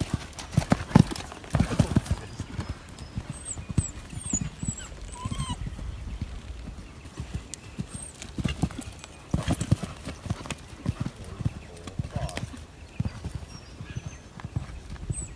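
Hoofbeats of a horse cantering on a sand arena: dull thuds in quick groups that come and go as the horse passes, loudest about a second in and again around the middle.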